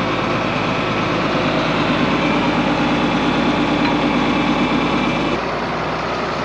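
A vehicle engine running steadily at idle or low speed, with a brief change in the drone near the end.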